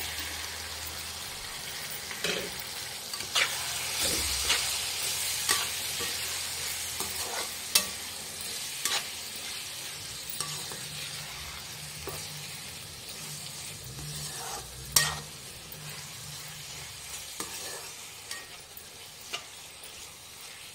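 Chopped tomatoes and minced meat sizzling in hot oil in a frying pan, stirred with a metal spoon that clicks and scrapes against the pan now and then. The sizzle is strongest in the first several seconds and slowly dies down.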